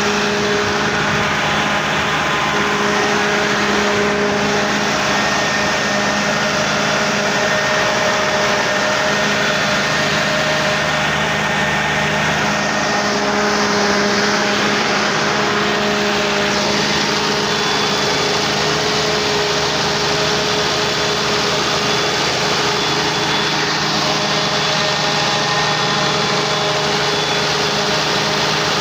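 Cummins 6BT turbo-diesel inline-six running steadily at idle, freshly rebuilt.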